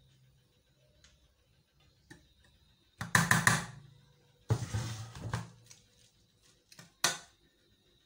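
Three short bursts of rustling, scraping handling noise from a metal pan of steamed vermicelli being handled, about three, four and a half and seven seconds in, after a few quiet seconds.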